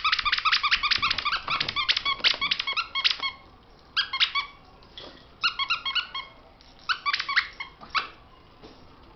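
Squeaker in a plush dog toy squeezed in quick runs of short, high squeaks, several a second: one long run, then a few shorter ones with pauses between.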